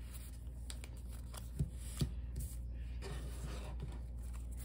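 Pokémon trading cards being handled and set down on a table: two light taps between one and a half and two seconds in, and faint rustling of cards, over a low steady hum.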